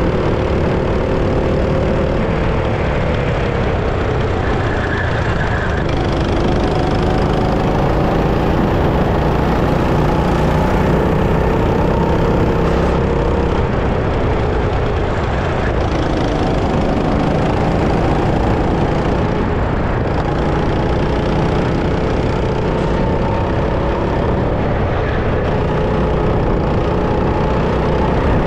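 Go-kart engine running steadily, its pitch slowly rising and falling as the kart speeds up and slows through corners, over a heavy low rumble.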